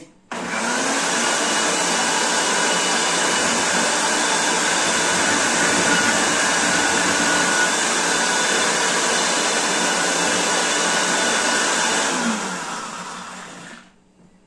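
Electric countertop blender running at full speed, grinding chopped sausage with a little water. It spins up just after the start, runs steadily for about twelve seconds, then winds down and stops near the end.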